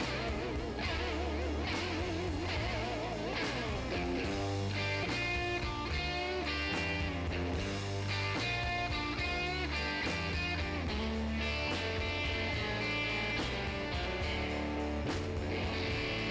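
Background music: an electric guitar tune, its first notes wavering up and down in a wide vibrato, then a run of separate notes over a steady beat.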